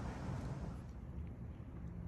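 Faint, steady background rumble with no distinct sounds: room tone.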